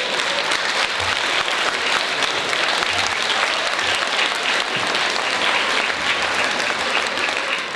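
Audience applauding in a hall: steady, dense clapping from many hands.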